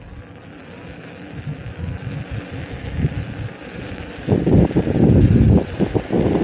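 Wind buffeting the microphone of a rider on an electric unicycle. It grows steadily louder, then turns into heavy gusts about two-thirds of the way through.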